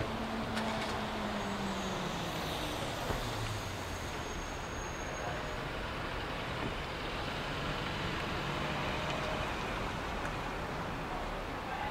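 City street traffic: cars driving through an intersection and a city bus's engine running, over steady road noise. One engine note drops in pitch in the first couple of seconds as a car pulls away.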